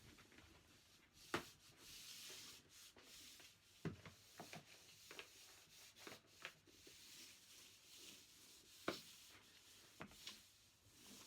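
Faint rubbing and swishing of a Quickle Wiper floor mop sliding over the floor, with about six light knocks along the way.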